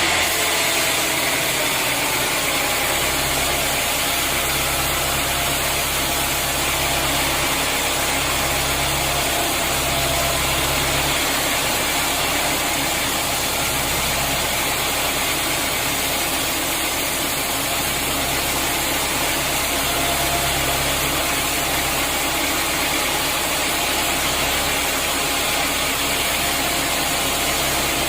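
Sawmill machinery running with a steady mechanical drone. A deeper low hum comes in and drops out a couple of times.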